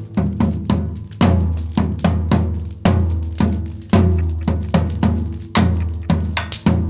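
Drum kit played in a steady groove: sharp strikes about twice a second, each with a deep ringing low drum tone.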